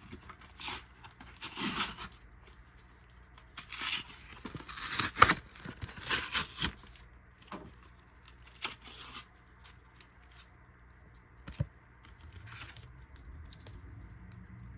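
Trading-card packaging being torn open and handled: a series of short rips and rustles, loudest around five seconds in.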